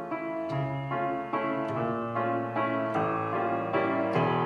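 Instrumental dance-routine music led by piano, its chords changing about twice a second and growing gradually louder.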